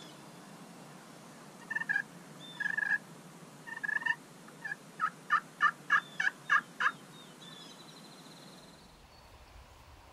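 Turkey calling: three separate notes, then a quick run of about eight notes at roughly four a second, over a steady outdoor hiss.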